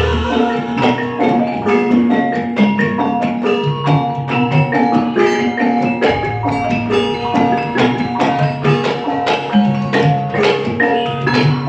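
Live gamelan music accompanying a Wonosobo lengger dance: mallet-struck pitched percussion plays a quick, even pattern of repeated notes. A low hum comes in about halfway through.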